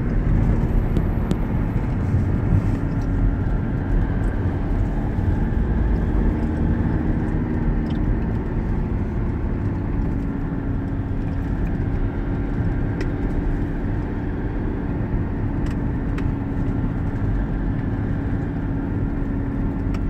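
Steady road and engine noise heard from inside a moving car: a low rumble with a faint, even engine drone.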